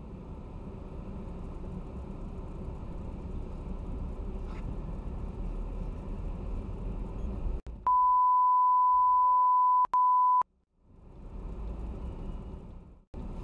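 Steady low rumble of a car's cabin, as a dashcam records it. About eight seconds in, a loud, steady, high single-pitch bleep cuts in for about two seconds, with a brief break, covering faint speech: a censor bleep over the driver's words. The cabin rumble then returns.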